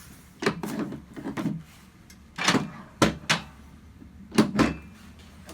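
Chiropractic treatment table being straightened out: a series of knocks and clunks at uneven intervals as its sections are moved and set in place.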